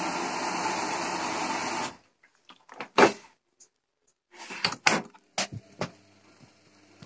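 Water rushing steadily into a Gorenje WA 50050 front-loading washing machine through its detergent drawer as it fills, cutting off suddenly about two seconds in. Then a few sharp plastic knocks and clunks from the detergent drawer being handled, over a faint machine hum.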